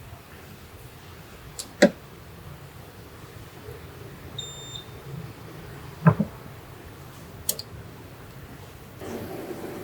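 A few sharp knocks and clicks, with one short high electronic beep between them. Near the end a steady hum starts up.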